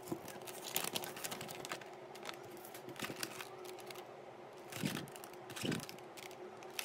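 Irregular clicks, taps and crinkles from hands handling clear plastic blister trays and foil booster packs, over a faint steady hum.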